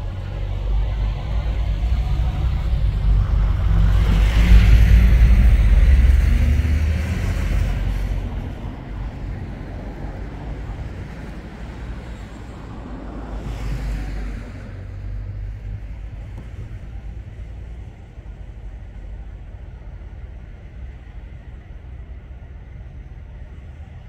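Low rumble of passing traffic, building to a peak about five seconds in and then fading, with a smaller swell near the middle and a fainter steady rumble after.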